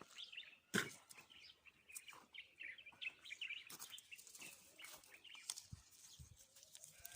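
Faint chirping of small birds, with a few sharp clicks, the loudest about a second in.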